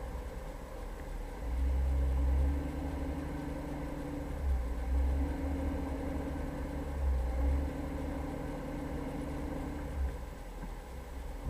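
Jeep Cherokee engine running steadily and getting louder briefly three times, as when driving off-road.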